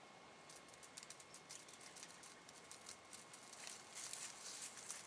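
Faint crackling and rustling in dry leaf litter from a whitetail deer stepping through it, starting about half a second in and growing denser and louder toward the end.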